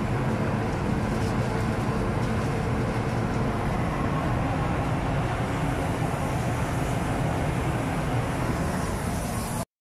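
Steady mechanical rumble with hiss from paint-booth machinery, with no break until it cuts off abruptly near the end.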